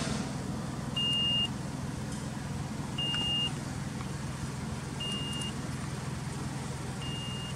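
Suzuki Alto Works HA36S's 660 cc turbo three-cylinder idling steadily, heard from inside the cabin. A short high beep sounds every two seconds, four times.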